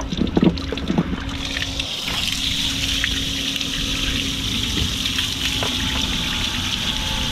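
Seawater that came on board in choppy water draining steadily out of a small boat's hull. The water runs in an even stream, with a low steady hum underneath.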